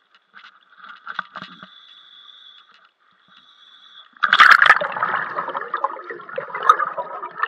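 Underwater in a swimming pool: a faint steady whine, then about four seconds in a loud rush of bubbling and gurgling from a scuba diver exhaling through a regulator.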